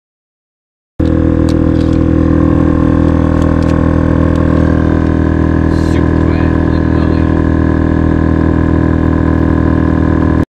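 Newly installed Viair 12-volt piston air compressor running, a loud, steady drone, pumping up the RV's air system from empty. It cuts in abruptly about a second in and stops abruptly just before the end.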